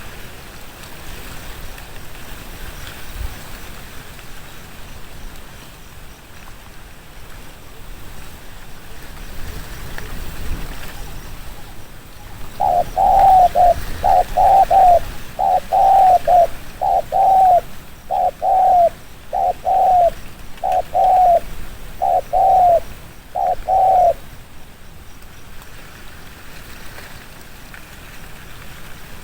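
Spotted dove cooing in a rapid run of about a dozen short two-part coos, roughly one a second, starting about halfway through and stopping shortly before the end. This is the quick, pressing 'thúc gù' style of cooing that keepers prize.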